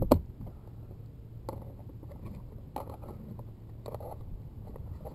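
Handling noise from a clear plastic battery box and a coiled power cable: one sharp click at the start, then a few faint clicks and rustles over a low steady rumble.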